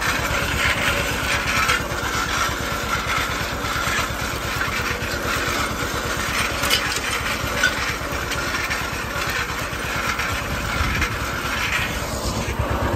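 John Deere 630's two-cylinder engine running under load with a steady, even exhaust beat as it pulls a disk harrow. A rushing noise from the disk gangs cutting through the stubble runs over it.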